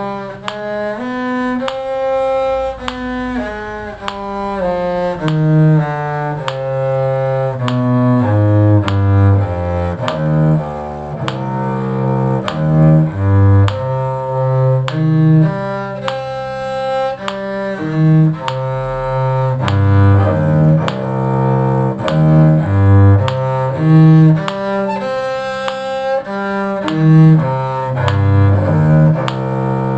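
A cello playing a steady line of bowed notes, with moving low notes under higher ones.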